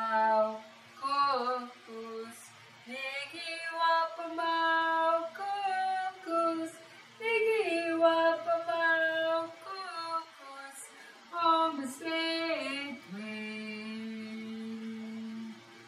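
A woman singing a short song unaccompanied, in sustained notes that step up and down, ending on a long low held note near the end.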